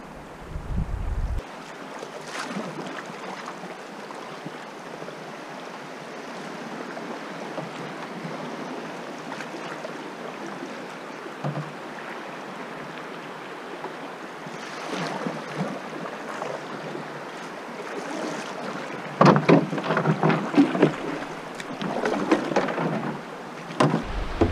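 River water rushing and lapping against a loaded canoe, with wind on the microphone. In the last five seconds a run of louder irregular knocks and splashes as the canoe comes into shallow water over gravel.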